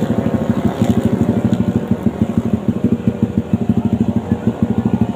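An engine running close by with a fast, even pulsing beat that holds steady.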